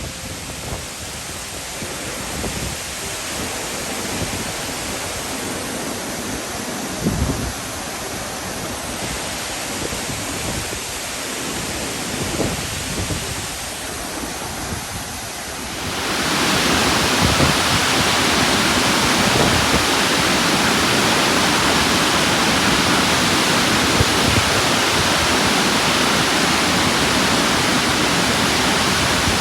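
Burney Falls, a 129-foot waterfall, giving a steady rushing roar of falling water. About halfway through it becomes markedly louder and fuller, and there is a brief low thump early on.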